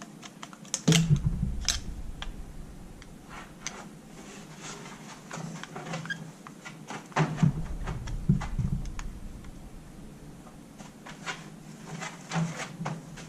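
Small irregular clicks and taps of a screwdriver and metal parts as the carburetor screws are lightly snugged down in a crisscross pattern, with a few dull bumps of handling on the bench.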